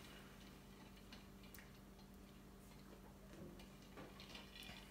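Near silence: a faint steady hum with soft, irregular little clicks, as a metal spoon spreads tomato sauce over pizza dough.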